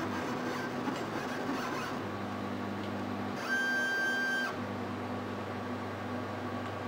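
X-Carve CNC router's stepper motors whining as the gantry moves through a dry run with nothing being cut. The whine shifts pitch about two seconds in, and a louder, higher whine lasts about a second just past the middle before it drops back.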